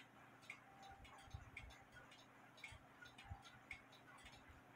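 Faint, steady ticking of a mechanical clock, about one tick a second with softer ticks in between, under a few soft low knocks.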